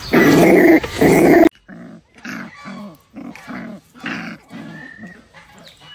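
A puppy growling: a loud stretch that cuts off suddenly about a second and a half in, then a run of short, quieter growls, about three a second.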